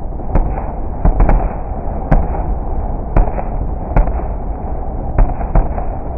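Fireworks display: sharp bangs of bursting shells, about nine of them, with a quick cluster about a second in, over a continuous low rumble.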